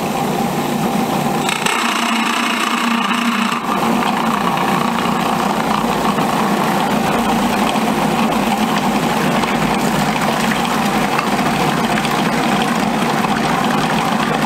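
Food processor motor running steadily while water is drizzled into flour, salt and shortening to bring dumpling dough together. The sound changes briefly about two seconds in, with a higher hiss over less low hum.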